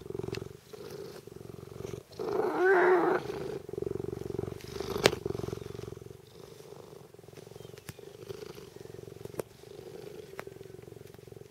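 A large Tonkinese cat purring steadily right at the microphone. A brief louder sound with a wavering pitch comes about two and a half seconds in, and a sharp click near five seconds.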